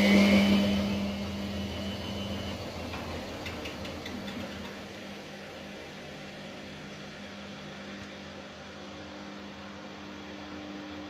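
Teka TK2 1070 washing machine spinning down: the motor hum and a high whine fade over the first few seconds and settle into a quieter steady running hum. A faint steady tone comes in near the end.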